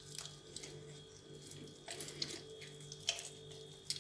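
Faint wet clicks of hands working oil-coated bread dough into balls, a few times, over a steady low hum.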